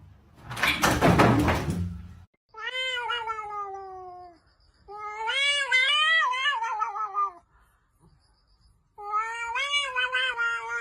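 A cat giving three long, drawn-out meows, each falling or wavering in pitch, after a brief noisy burst of sound at the start.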